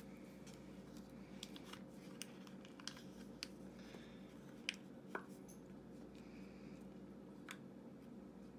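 Faint scattered clicks and soft rustles of fingers digging through crumbly play dough in a small plastic toy cup, over a steady low room hum.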